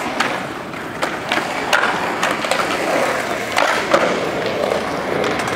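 Skateboard wheels rolling over concrete, broken by several sharp clacks of boards striking the ground, the loudest about four seconds in.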